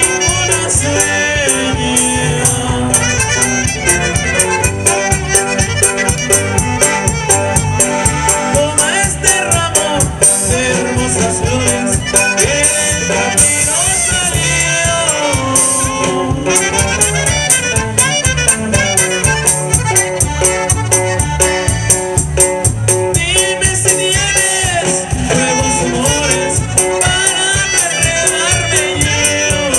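Live norteño band with saxophone, accordion, guitars and drum kit playing a song with a singer over a steady beat, amplified through the stage PA.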